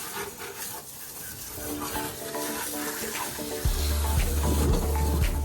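Water running and splashing in a steady hiss, as when an engine bay is being rinsed during degreasing. Background music comes in about a second and a half in, with a heavy bass beat joining past the halfway point.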